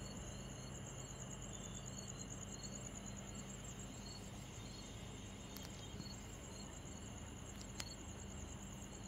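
Crickets chirping in a steady, high-pitched trill, faint, with a single light click about eight seconds in.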